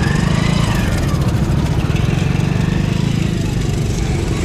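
Road traffic on a highway: a steady low engine rumble from vehicles close by, with a higher whine that drops in pitch about a second in.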